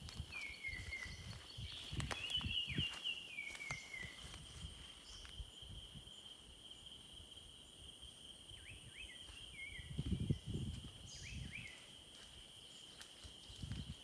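Faint forest ambience: a steady, high-pitched insect drone with short, falling whistled bird calls in clusters near the start and again past the middle. A few low thuds come about two thirds of the way through.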